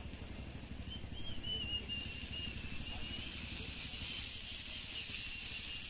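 Cooking oil poured onto chopped onion and beans on a hot flat griddle, sizzling, the hiss building about a second and a half in and holding. A faint wavering high tone runs through the first half, over a low steady rumble.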